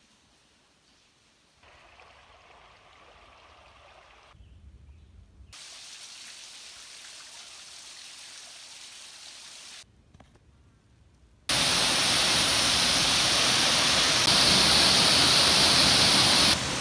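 Falling and flowing water heard in a string of short cuts: faint water noise that stops and starts abruptly, then a waterfall pouring into a pool, loud and steady from about two-thirds of the way in.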